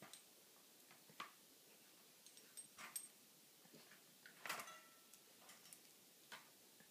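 Faint, scattered clicks and rattles of a wire dog crate's door as a dog noses and paws at its latch to open it, the loudest clink a bit past halfway.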